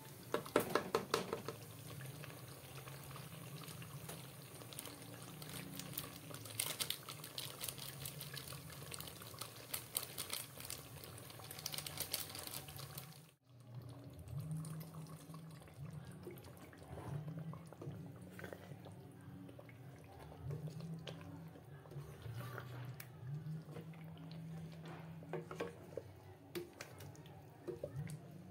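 Thick tomato stew bubbling and sizzling in an aluminium pot on the stove, with dense crackling and popping. After a sudden break about halfway through, it turns quieter with scattered plops.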